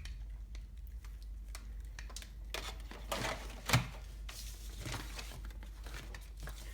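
Handling noise of car-stereo wiring harnesses: light rustling and small clicks of wires and plastic connectors being moved, with a sharper click a little past halfway.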